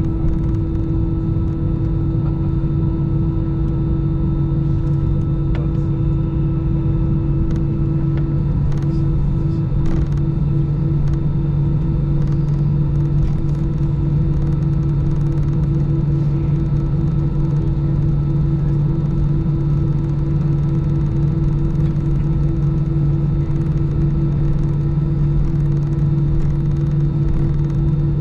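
Airbus A319 cabin noise on the ground with the jet engines at idle: a steady hum with low tones, one of which starts to pulse evenly about eight seconds in.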